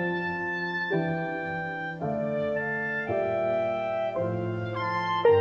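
Instrumental intro of a pop song's backing track, with no vocals yet: held chords that change about once a second.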